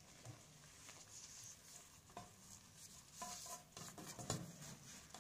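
Faint rustling of paper and soft handling sounds as a filled chapati is rolled up by hand on a paper sheet, slightly louder about three to four and a half seconds in.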